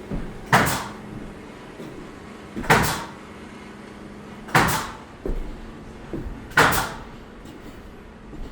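Four loud knocks at an even pace of about one every two seconds, each a sharp impact with a short ring after it.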